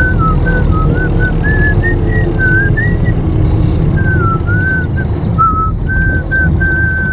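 A person whistling a tune, a string of short, sliding notes, over a loud, steady low rumble.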